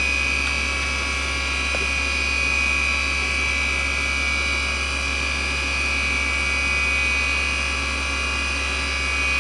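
NEC D3711 170MB 3.5-inch hard drive spinning at speed, a steady high whine with an even hum beneath and no head seeks: the drive is spun up and idling.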